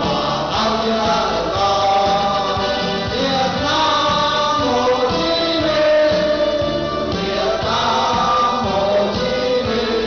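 A group of men singing a song together in chorus, their voices amplified through handheld microphones.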